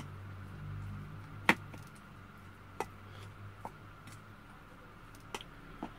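Metal spoon mixing bibimbap in a stainless steel bowl, with about five sharp clinks of the spoon against the bowl; the loudest comes about one and a half seconds in.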